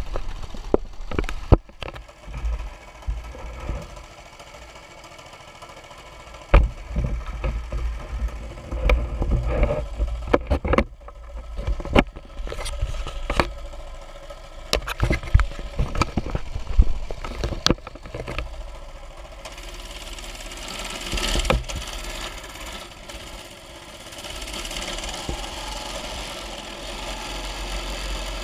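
A mini bike's small engine running while it rides over bumpy ground, with many sharp knocks and rattles from the bumps. About two-thirds of the way in the knocks die down and a steady rushing hiss of tyres on gravel and wind takes over.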